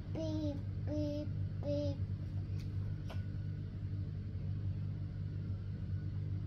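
A toddler's voice: three short, repeated sung syllables in the first two seconds, then two light clicks, all over a steady low hum.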